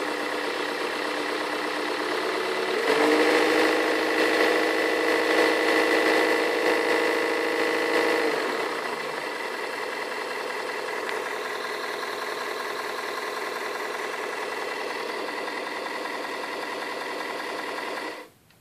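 Turnigy 4250-700 brushless motor on a model aircraft running with a clatter that sounds like a large six-cylinder diesel truck engine, caused by the motor sitting too tight against the cowl. It throttles up about three seconds in, eases back around eight seconds, runs steadily, then cuts off suddenly near the end.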